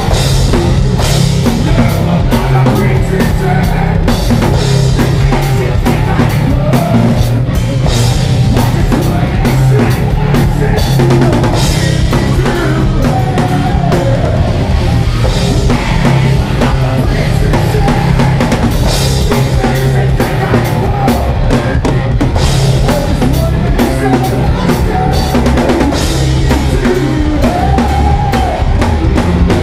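Rock band playing loud live heavy music: electric guitar, bass guitar and drum kit together.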